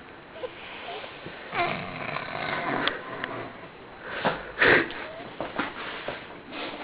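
A woman snoring in her sleep: irregular noisy breaths, the loudest a little over four seconds in.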